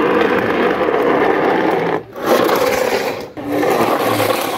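Motorised plastic toy car running: its electric motor and gears whirring steadily, cutting out briefly twice.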